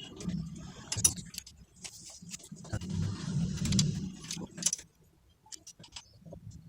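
Metal hand tools clinking and tapping against the valve tappet adjusters and lock nuts of a motorcycle engine's cylinder head as the valve clearance is set. The clinks are scattered and sharp, over a low background rumble that fades out about five seconds in.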